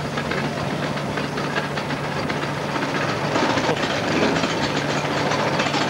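Simplex narrow-gauge locomotive's 40-horsepower engine running steadily as the loco rolls along the track, with a rapid rattling clatter, growing a little louder about three seconds in as it draws near. The engine sounds healthy.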